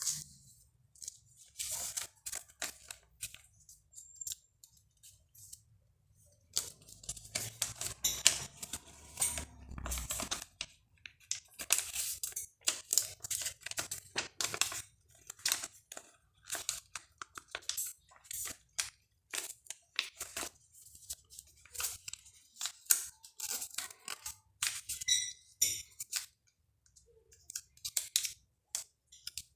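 A sheet of paper being folded and creased by hand: a string of short, crisp paper rustles and crackles, busiest through the middle.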